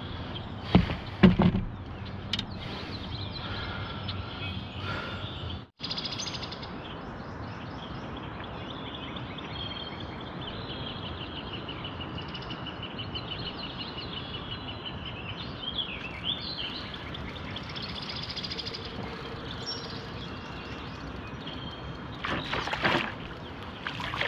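Birds singing and chirping over steady outdoor background noise, with a few knocks in the first second or two. From about 22 s on, splashing from a hooked catfish thrashing at the surface on the line.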